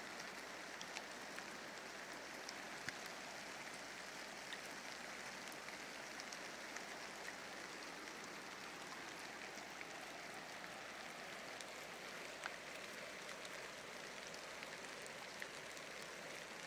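Steady rushing of a fast-flowing river, an even hiss of moving water, with a few faint scattered ticks.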